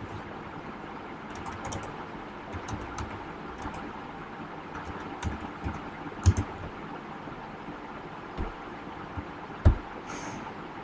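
Typing on a computer keyboard: scattered light key clicks over a steady low background hum, with two louder thumps about six and nine and a half seconds in.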